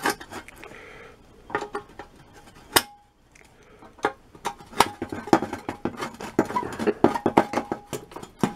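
Pliers clicking and scraping on a drilled-out rivet and the metal shovel blade as the rivet is worked loose and pulled out: sharp metallic clinks, scattered at first, then quick and dense in the second half.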